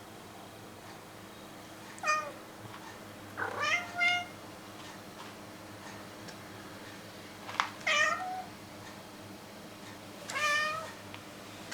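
A hungry domestic cat giving short, high-pitched squeaky meows, about five spread out with pauses between them, begging for food.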